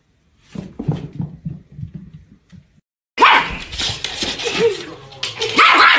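A few soft, short knocks and scuffles, then a little past the midpoint a sudden loud outburst of dogs barking as a small dog and a larger dog scuffle.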